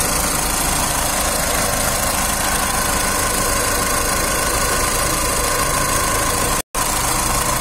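Skoda Rapid's diesel engine idling steadily, making a lot of sound, heard close up from the engine bay. The sound cuts out for an instant near the end.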